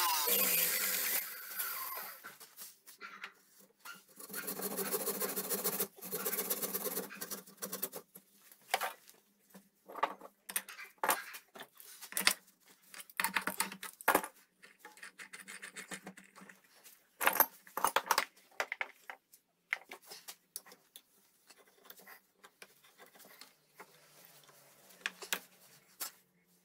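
A homemade wood lathe driven by a washing-machine motor spins down, its hum falling in pitch over the first second or so. Then come scattered clicks, knocks and scrapes of metal and wood as the tailstock chuck is worked by hand and the turned spindle is taken off the lathe.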